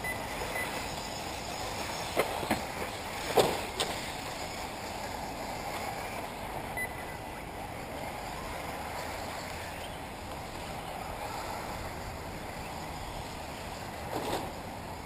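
Electric 1/8-scale RC off-road buggies running on the track, heard as a steady rushing noise. A few sharp knocks come about two to four seconds in and once more near the end.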